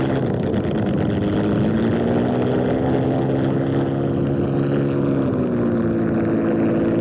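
P-51 Mustang's Merlin V-12 piston engine running with the propeller turning. The engine speed rises a little in the first couple of seconds, then eases down about five seconds in and holds steady.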